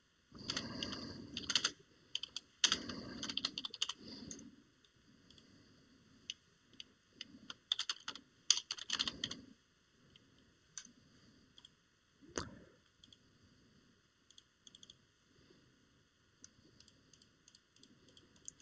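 Typing on a computer keyboard in quick bursts of keystrokes, busiest in the first four seconds and again around eight to nine seconds in, then only scattered single clicks.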